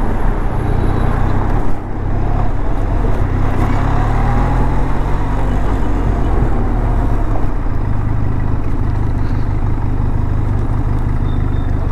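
Benelli TRK 502's parallel-twin engine running steadily while the motorcycle is ridden, its note dipping briefly about two seconds in.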